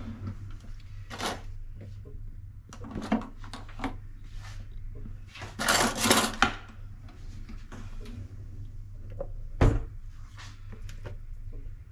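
Kitchen handling sounds of pots and utensils: scattered light clinks and knocks, a short louder burst of noise about six seconds in and a dull thump near ten seconds, over a steady low hum.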